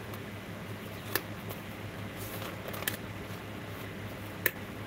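Copper-foiled sea glass pieces being handled, giving three short, sharp clicks over a steady low hum.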